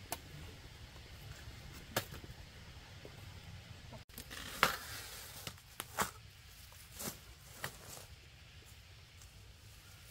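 Banana stalks being cut with a knife and broken by hand: a handful of sharp cracks and knocks, irregularly spaced, the loudest about four and a half seconds in, with a short rustle after it.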